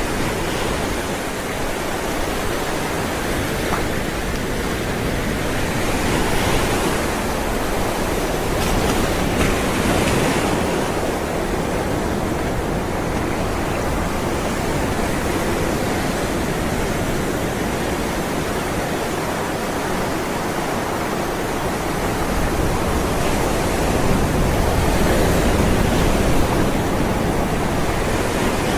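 Ocean waves rolling and breaking on a shore, a steady wash of surf that swells twice, about a third of the way in and again near the end.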